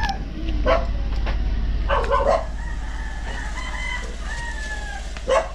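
Rooster crowing: one long drawn-out call starting about two seconds in, with a few short sharp calls around it and a steady low hum underneath.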